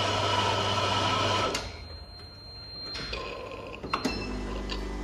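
Bean-to-cup coffee machine grinding beans, the grinder stopping about a second and a half in. A few sharp mechanical clicks follow. Near the end the machine starts a steady low hum as it begins brewing.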